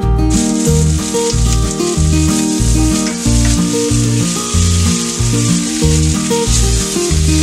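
Bacon-wrapped beef patties and onions sizzling steadily on a grill pan, over background music. The sizzle comes in sharply just after the start.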